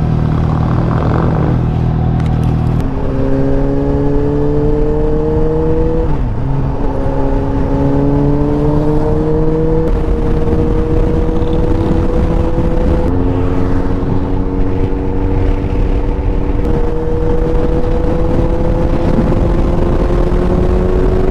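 Suzuki GSX-S750's inline-four engine through a MIVV Suono slip-on exhaust, running low for about three seconds and then pulling hard, its pitch climbing and dropping back at gear changes about six and thirteen seconds in.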